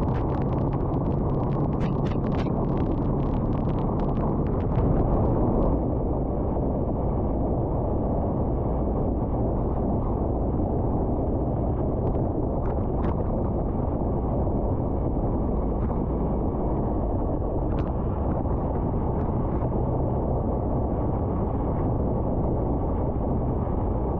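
Royal Enfield Himalayan's single-cylinder engine running at road speed under a steady rush of wind and wet-road noise. Sharp ticks of raindrops hitting the camera come thick in the first few seconds, with a few more later.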